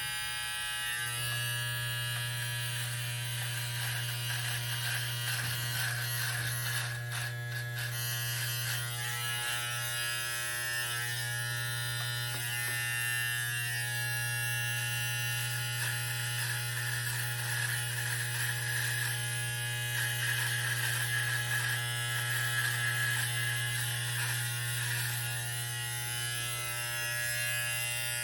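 Andis T-Outliner hair trimmer running with a steady buzz while its freshly set blade cuts beard hair under the neck to make a sharp line. The buzz dips briefly twice, once just after the start and once about ten seconds in.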